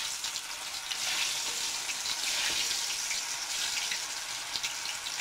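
Batter-coated mushroom pieces deep-frying in hot oil in a kadai: a steady sizzle with many small crackles.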